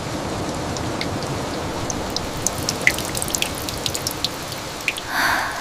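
Steady rain falling, with scattered sharp drips landing close by. About five seconds in, a brief louder rush of noise swells and fades.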